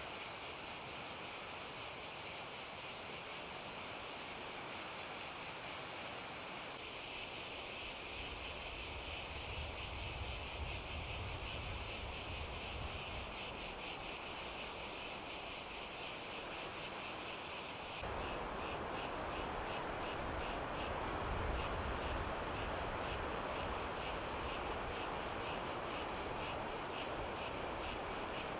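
Dense, steady chorus of insects chirring in a high, fast-pulsing drone, with a low rumble of wind joining about eight seconds in.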